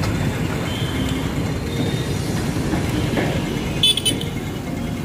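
Street traffic noise with a steady low rumble, and a short vehicle horn toot a little under four seconds in.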